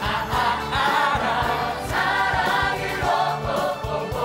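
A musical-theatre company singing an upbeat ensemble number as a choir, over instrumental backing with a steady beat.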